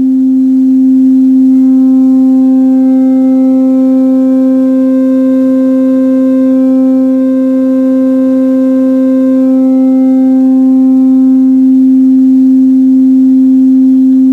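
Steady mid-pitched synthesizer tone from an analog oscillator's sine wave, clipped on its positive half only by a clipper module. Upper harmonics fill in over the first few seconds and thin out again near the end as the clipping shifts, turning the mellow sine toward a more aggressive, reedy square-like tone.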